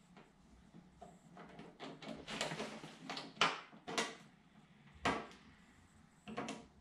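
A series of irregular clicks, knocks and clatters from parts being handled on top of a Vespa PX scooter's frame, with the sharpest knock about five seconds in.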